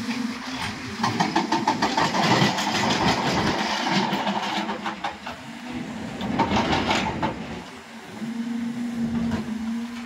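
Crawler excavators working: a steady diesel engine hum, with a stretch of dense, rapid metallic clattering and scraping from about a second in to about seven seconds.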